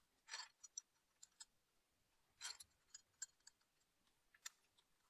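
Near silence broken by about a dozen faint, sharp clicks and light metallic clinks, spaced irregularly: small metal parts and tools being handled.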